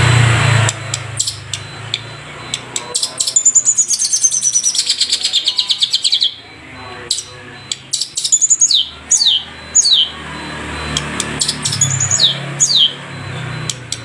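Long-tailed shrike (cendet, Madura type) singing a varied song: scattered sharp clicks and chips, a fast trill of rapid notes sliding down in pitch for about three seconds, then a run of sharp whistles that each drop steeply in pitch.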